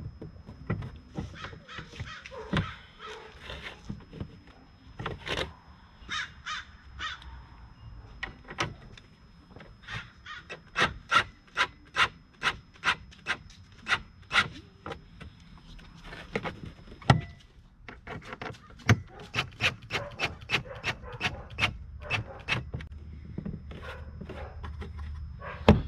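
Screws being driven with a hand tool to fasten a plastic air-intake housing: two long runs of sharp, evenly spaced ratcheting clicks, about three a second, with rubbing and scraping of plastic parts before them.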